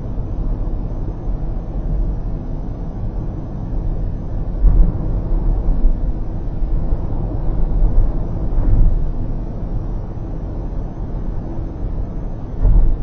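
Road noise of a moving car heard from inside the cabin: a steady low rumble of tyres and engine at expressway speed, with a few brief louder low thumps.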